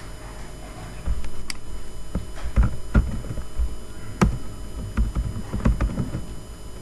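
Typing on a computer keyboard: irregular keystrokes starting about a second in, several of them heavy clacks with a low thud.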